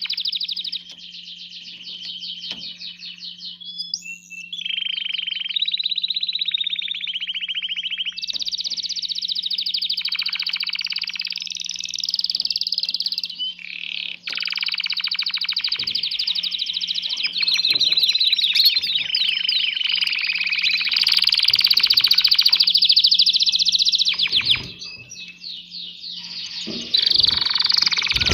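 Male canary singing an excited courtship song: long runs of very fast trills and rolls, broken by short pauses.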